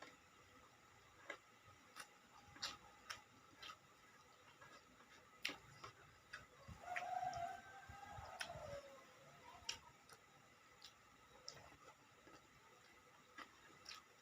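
Quiet mouth sounds of eating: scattered sharp clicks and smacks of chewing. About seven seconds in, a pitched call is heard for about two seconds, falling at its end.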